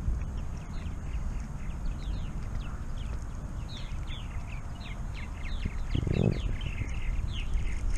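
Many small birds chirping over and over in short falling notes, several a second, over a low steady rumble of wind on the microphone, with a brief dull thump about six seconds in.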